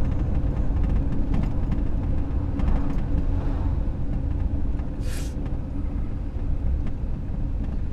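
Steady low engine and road rumble heard from inside a vehicle's cabin as it drives slowly, with a brief hiss about five seconds in.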